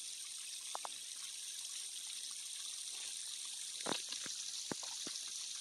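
Steady high-pitched outdoor hiss, with a few short soft clicks scattered through it.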